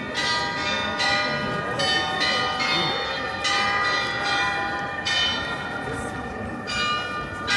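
Tower bells of the New Town Hall Glockenspiel playing a tune, one struck note after another, each left ringing.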